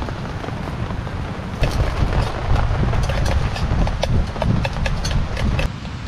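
Low rumble of wind buffeting the microphone, with scattered sharp crackles and ticks over it. It gets louder abruptly under two seconds in and drops back shortly before the end.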